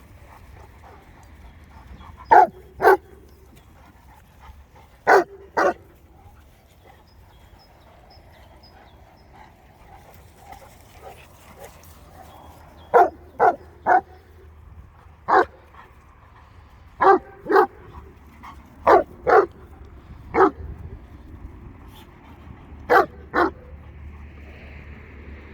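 A dog barking: short, sharp single barks, mostly in pairs about half a second apart, coming in bouts a few seconds apart.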